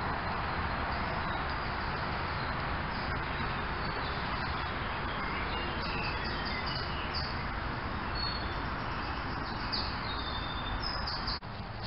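Wild birds chirping and singing in short high calls, thickest in the second half, over a steady rushing noise of traffic on a nearby motorway, picked up by a trail camera's microphone.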